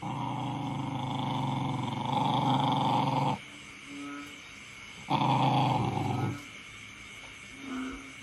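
Dog growling in two long stretches, the first about three seconds, the second over a second, with short faint yaps in between.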